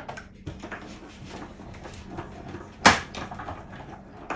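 Hand-cranked die-cutting machine being turned to feed the cutting plates and die through, a low, uneven grinding and creaking. A single sharp clack about three seconds in is the loudest sound.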